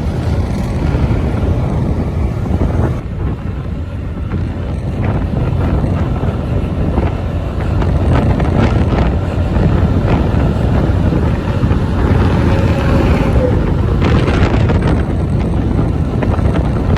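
Wind rushing over the microphone of a moving Honda Click 125i scooter, mixed with its engine and road noise, loud and steady.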